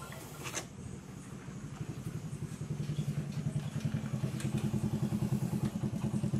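A small engine running at a steady idle, with a rapid even pulse, getting louder about two and a half seconds in. A sharp click sounds just over half a second in.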